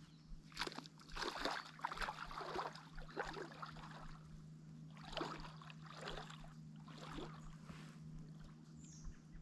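Faint water sloshing and trickling in small, irregular splashes, over a steady low hum.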